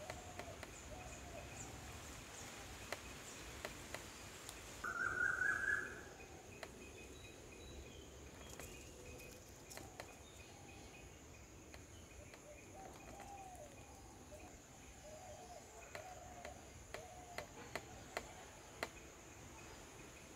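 Garden ambience with birds calling on and off in short wavering phrases, one louder call about five seconds in lasting about a second, over a steady high hiss and a few scattered faint clicks.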